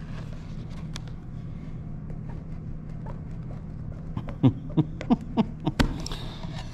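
A steady low hum with a quick run of sharp clicks and knocks from about four to six seconds in, like small hard objects being handled.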